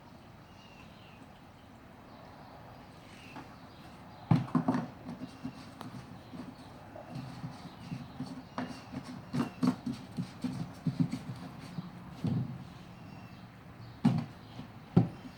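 Irregular knocks, clunks and clicks of hands working on a lawnmower, starting about four seconds in; the engine is not running.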